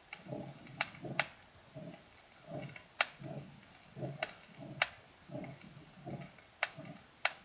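Heart sounds of acquired aortic stenosis: a rough systolic murmur over the aortic area, repeating with each beat a little more than once a second. The murmur takes the place of the first heart sound, and no second heart sound is heard. Sharp clicks are scattered through it.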